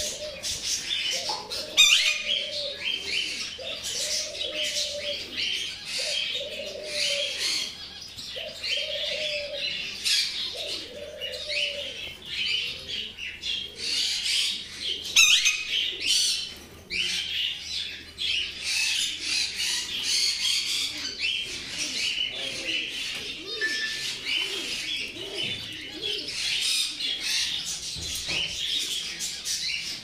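Many caged canaries and other small finches chirping and twittering continuously, with lower cooing calls repeating about once a second through the first half. Two sharp clicks stand out, one near the start and one about halfway through.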